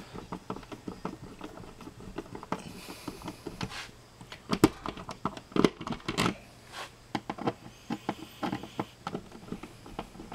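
Screwdriver turning the mounting screws of a 240-volt wall outlet into a blue plastic electrical box: steady small clicks and scraping, with a few louder sharp clicks about halfway through.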